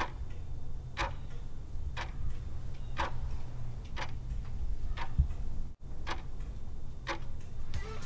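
Clock ticking about once a second over a low steady hum.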